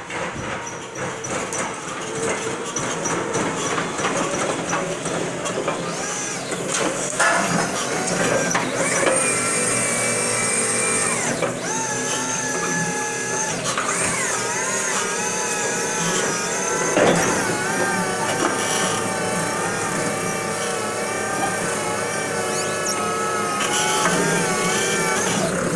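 Electric stand-up reach truck running, its motors whining as it moves in and the hydraulic pump raises the mast; the whine rises and wavers, then holds steady while the mast goes up. A single sharp knock comes about two-thirds of the way through.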